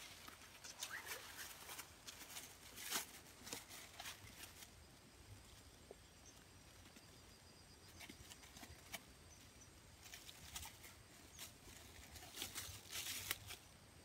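Faint, irregular rustling and crackling of leaves and twigs as someone pushes through and handles dense scrub, with more of it near the end.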